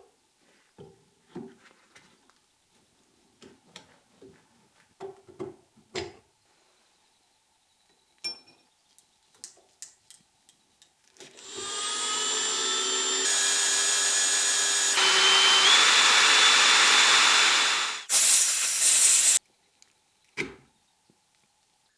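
A string of light knocks and taps, as parts are handled, then an electric power tool runs steadily for about eight seconds. It stops briefly, runs again for a moment, then stops.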